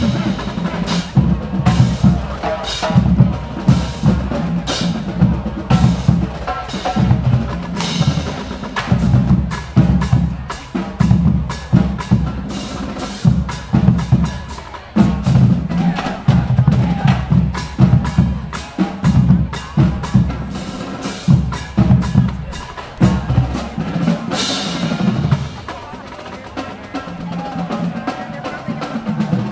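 Marching band drumline playing a cadence on snare, tenor and bass drums with cymbals, the bass drums hitting a steady, loud beat. About 24 seconds in a cymbal crash rings out, and the deep bass-drum hits drop away for a few seconds before coming back near the end.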